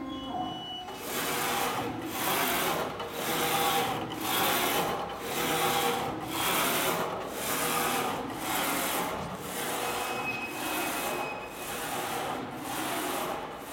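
HDJ-A4 flatbed digital textile printer at work: its print-head carriage sweeps back and forth along the gantry with a rubbing whirr. The sound comes in even passes of just under a second, each broken off by a short gap as the carriage reverses.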